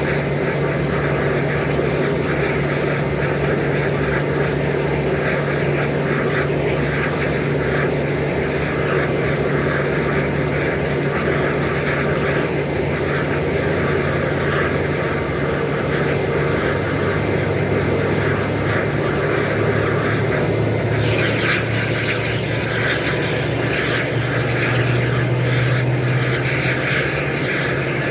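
Airbus A320 jet engines running steadily at idle on the ground, a constant hum under a high whine. About three quarters of the way through, a brighter hiss joins in.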